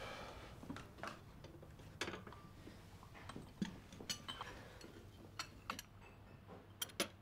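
Faint, irregular small clicks and light clinks of china teacups and saucers being handled, against quiet room tone.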